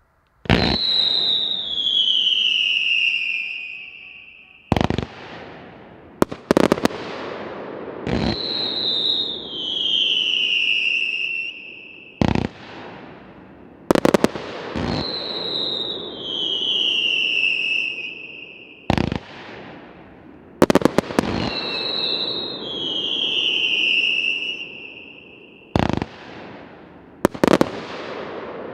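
Hands Fireworks 'The Howler', a 180-shot fanned fireworks cake of 20 mm and 32 mm tubes, firing. Four long whistles each fall in pitch over about three seconds, with sharp bangs of launches and star bursts between them and a steady rushing hiss underneath.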